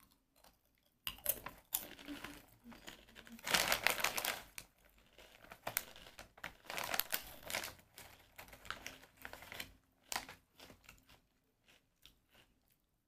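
Plastic snack packaging being handled and crinkled in irregular bursts, with small clicks, loudest about four seconds in.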